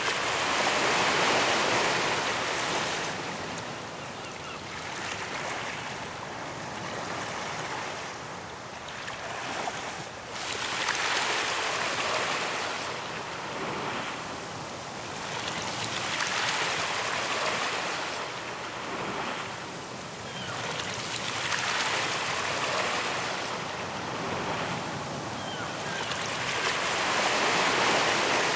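Ocean surf breaking on a beach, the rush of water swelling and fading again every few seconds as each wave comes in.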